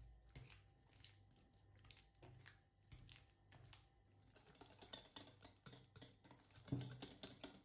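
Near silence, with a wire whisk stirring cream cheese and yogurt in a glass bowl: sparse faint clicks of the wires against the glass and soft squishing, with a slightly louder stroke near the end.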